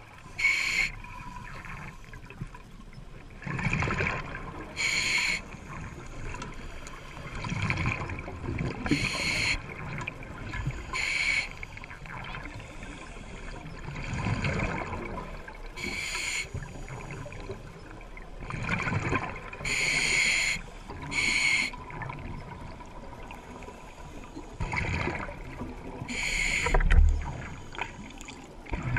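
Scuba diver breathing on a regulator underwater: short hissing inhalations through the regulator every few seconds, alternating with bubbling, rumbling exhalations.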